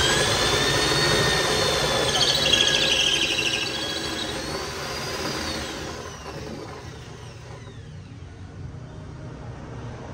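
Handheld power tool run on a solid hardwood slab: it starts abruptly, runs at full speed with a high whine for about four seconds, then winds down with a slowly falling pitch.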